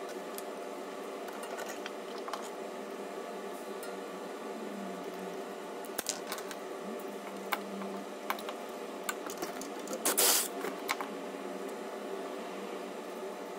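Hand tools, locking pliers and a socket wrench, clicking and clattering against a CNC router's steel ball screw and its end mount, with a louder rattle about ten seconds in, over a steady hum.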